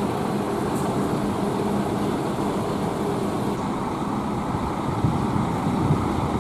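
Bus engines running steadily amid traffic noise, with a faint low hum and no sudden events.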